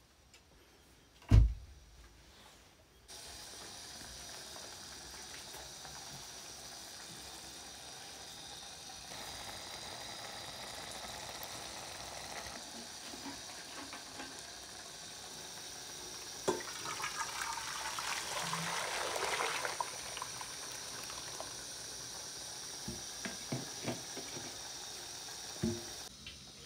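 Hot water poured from a vacuum flask into a metal pot, a splashing pour that swells for a few seconds about two-thirds of the way through. A single sharp thump sounds near the start.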